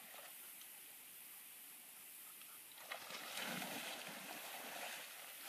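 Water splashing as a swimming dog thrashes at a large fish, starting about three seconds in and lasting a couple of seconds; before that only faint outdoor ambience.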